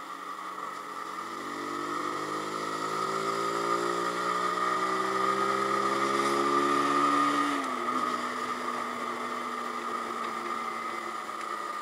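A Zontes G1X 125's single-cylinder engine runs steadily under way. An oncoming motorcycle grows louder with its engine note slowly rising. Its pitch drops sharply as it passes, about eight seconds in.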